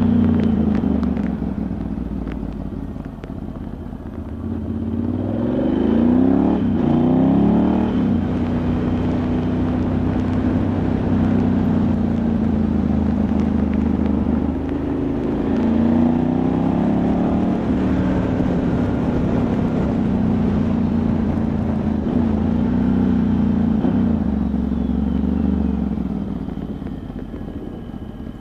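Ducati Multistrada 1100S's air-cooled L-twin engine running under way, its revs falling and rising again several times, with rising pitch about five seconds in and again near sixteen seconds. Wind noise runs underneath.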